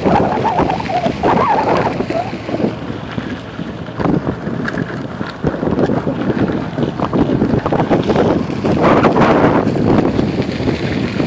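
Heavy wind buffeting on the microphone of a rider being towed at speed over a dirt road, rising and falling in gusts.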